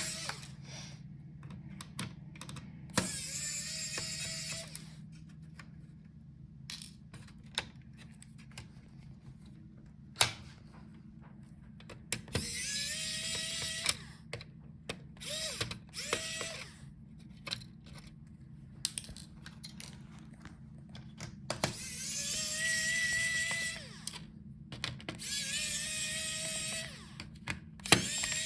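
Small electric screwdriver driving out laptop case screws in short runs of a second or two, each with a rising whine, about six times, with small clicks of screws and parts between.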